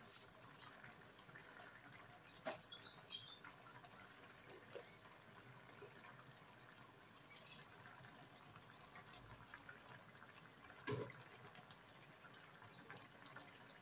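Near silence: faint simmering of fish in yellow spice sauce in a wok, with a light knock about two and a half seconds in and another near eleven seconds, and a few faint high chirps.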